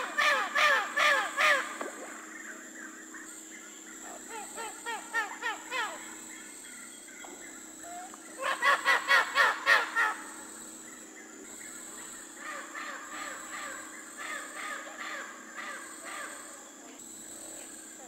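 Parrots squawking in quick runs of harsh, rasping calls, about four or five calls a second. The loudest runs come at the start and about halfway through, with quieter chattering runs in between.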